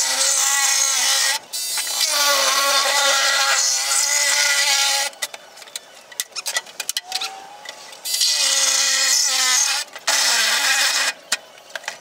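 Handheld electric saw cutting through the plastic back cabinet of a CRT television, running in runs of a few seconds that stop suddenly, its motor pitch wavering under load. In a pause of about three seconds in the middle, plastic clatters and knocks as the cut cabinet is pulled about.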